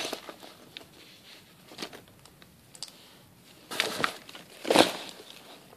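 Rustling and handling noise as items in a bag are rummaged through, in short irregular bursts. The loudest rustles come about four and five seconds in.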